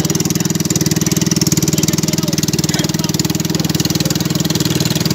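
Motorised bangka's engine running steadily under way, a low, rapid, even pulse that does not change in speed.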